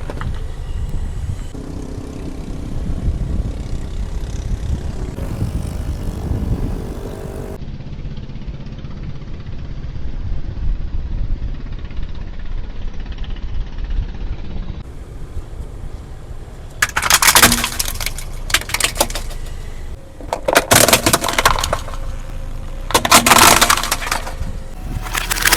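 Car rolling slowly with a low rumble, then its tyre crushing brittle objects: four loud, sudden crunches in the second half.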